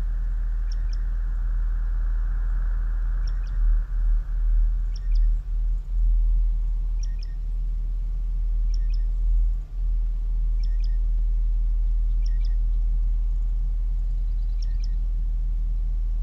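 Experimental electronic music played live: a loud, deep bass drone that swells and dips in the middle, with short high chirps about every two seconds. A hiss fades out over the first few seconds.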